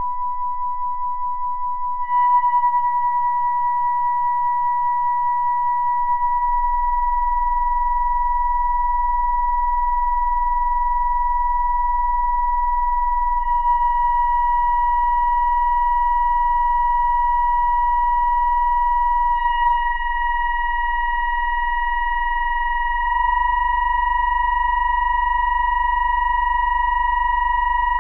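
Electronic music: a high, steady, pure synthesized sine-like tone with faint overtones. A low hum-like drone joins about six seconds in, and near the end the sound wavers slowly in loudness, about once a second.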